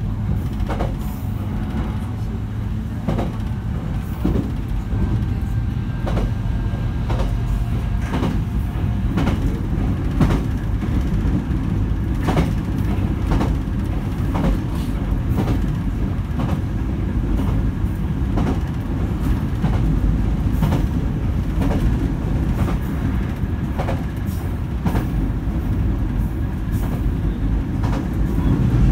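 JR Kyushu 819 series battery-electric train running, heard from inside at the front: a steady low rumble with sharp clicks about every second from the wheels crossing rail joints, and a faint steady whine.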